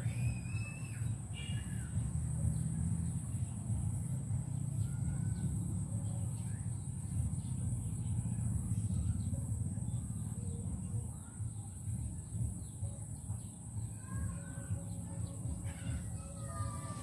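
Outdoor rural ambience: birds chirping and calling now and then over a steady low rumble, with a clearer pitched call near the end.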